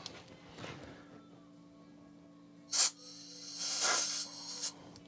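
Compressed-air blow gun blowing off a drilled workpiece on a milling machine: a short sharp blast of air just under three seconds in, then a longer hissing blast lasting about a second.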